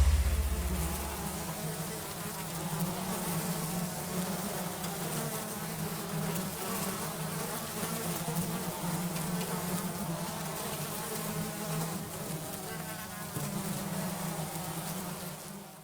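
Flies buzzing in a steady drone, the outro of a death metal track, as the band's music dies away in the first second or two. The buzz seems to carry the song's melody, and it cuts off abruptly near the end.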